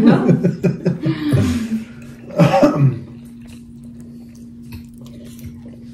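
A person coughs once, a short loud cough about two and a half seconds in, after a moment of voices at the table. After it only a faint steady hum remains.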